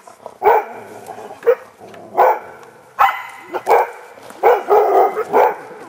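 Hunting dog barking over and over, about one or two barks a second, with the barks coming closer together in the second half.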